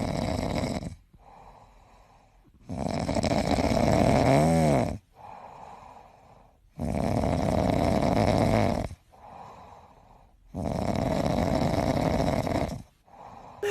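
A cat snoring loudly: four long, noisy snoring breaths of about two seconds each, one roughly every four seconds, with faint breathing between. About four and a half seconds in, one snore carries a brief whistling tone that rises and falls.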